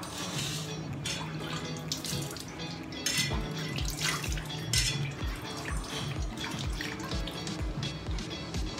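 Water splashing as wet hands rinse a face, over background music whose steady beat, about two a second, comes in about three seconds in.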